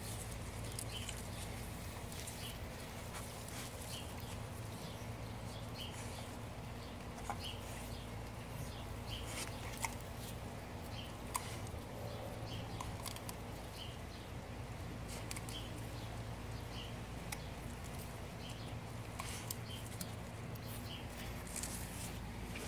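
English Bull Terrier nosing through tomato plant foliage at the fruit: faint rustling and scattered clicks over a steady low hum, with faint short high chirps about once a second.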